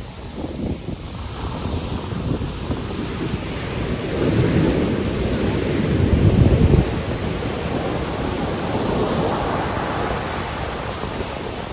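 Heavy ocean surf: large waves breaking, building to a loud low rumble about halfway through that cuts off sharply, then a steady wash of foam. Wind buffets the microphone.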